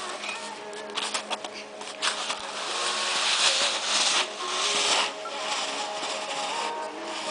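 A child's snowboard sliding and scraping over packed snow with a hiss, loudest in the middle seconds, after a few knocks about a second in. Faint distant music underneath.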